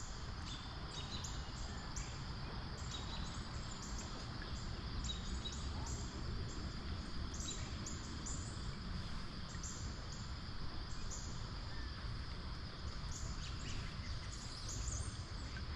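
Steady rush of stream water flowing around a wading angler, with faint short high chirps recurring throughout.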